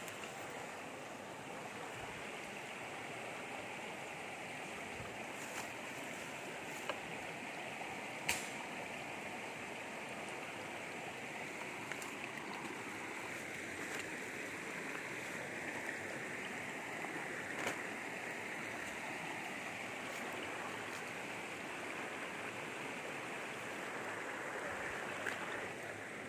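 Shallow river steadily rushing and babbling over stones in small rapids, with a few sharp clicks, the loudest about eight seconds in.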